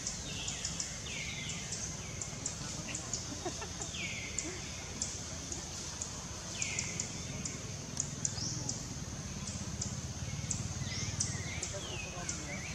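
Tropical forest ambience: a steady high insect drone threaded with quick ticks, short descending chirping calls every few seconds, and a low rumble underneath.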